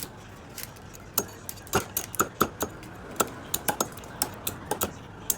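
Knife chopping crab: a quick, irregular series of sharp knocks and cracks as the blade goes through the shell and hits the board, about fifteen to twenty strikes.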